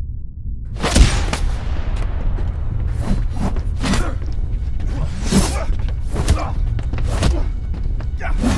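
Fight-scene sound effects: a run of sudden thumps and whooshes, about eight of them, over a low rumbling music bed. The first hit, about a second in, is the loudest.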